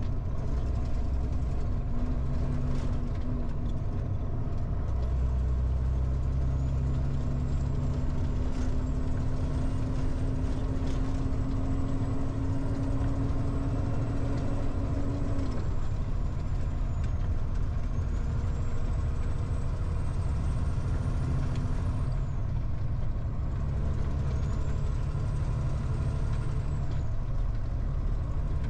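Diesel engine of a prime mover pulling a single trailer, running steadily under way and heard from inside the cab. The engine note climbs slowly, then drops away about halfway through, and a faint high whistle rises and falls.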